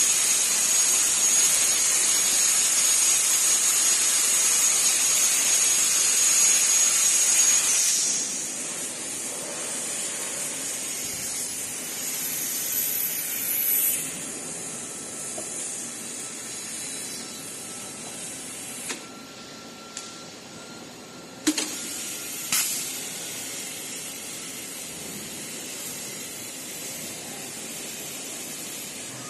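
Hypertherm HPR400XD plasma arc cutting: a loud steady hiss with a high whine, which stops about eight seconds in. A quieter hiss follows, with a few sharp clicks later on.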